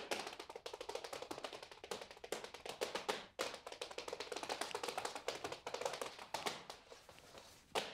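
Rapid, dense tapping and clicking, many sharp taps a second in an uneven rush, with a brief break about three seconds in and a last loud tap just before it stops.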